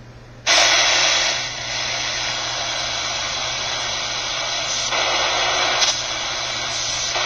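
QFX R-14 shortwave radio switching on about half a second in to a loud, steady hiss of static from its speaker, tuned on the 31-meter band with no station coming through. It picks up only noise, which the owner suspects comes from running the radio on its AC adapter.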